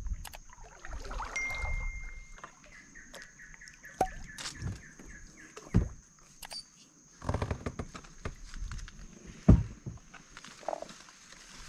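Kayak nosing in under low, leafy tree branches: leaves brushing and scattered knocks and clicks against the plastic hull and gear, with a steady high-pitched whine behind it.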